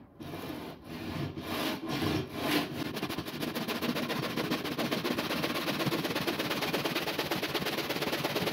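Hand saw cutting through a sheet of plywood: a few separate strokes at first, then a fast, continuous rasp of back-and-forth strokes.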